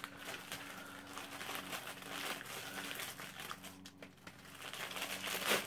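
Crinkling plastic packaging as the clear inner bag of an MRE ration is opened and the pouches inside are handled, with a louder rustle near the end.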